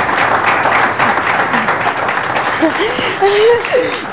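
Studio audience applauding, with voices calling out and laughing over the clapping in the last second and a half.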